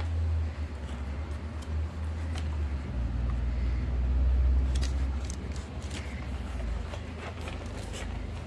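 Steady low rumble with scattered light clicks and taps from puppies moving about, thicker in the second half.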